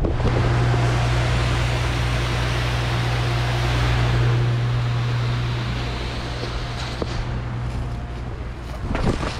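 A steady machine hum with a rushing noise, easing off shortly before the end.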